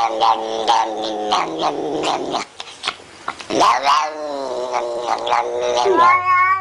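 Cat yowling in long drawn-out calls, choppy at first, with a short lull a little past two seconds in and a long wavering yowl starting near the end.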